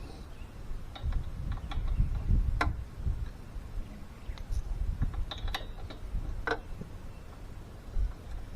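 Scattered sharp metallic clicks and taps over low handling thumps, from hand tools working on a lawn mower part.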